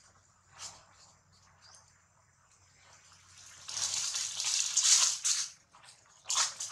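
Dry fallen leaves crunching and rustling under a macaque's feet as it walks. The sound is loudest from about four to five and a half seconds in, with a few shorter crunches near the end.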